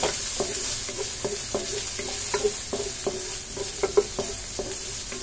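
Garlic and ginger sautéing in a little hot oil in a stainless steel wok, stirred with a wooden spatula: a steady sizzle with quick scraping strokes against the pan about three times a second, each leaving a short metallic ring. One stroke just before four seconds in is louder than the rest.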